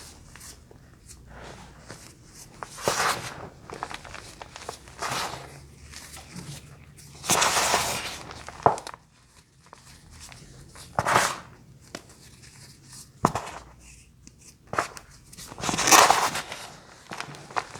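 Close-miked crunching in separate bursts a second or two apart, with small clicks and crackles between them. The longest burst comes about a third of the way in and the loudest near the end.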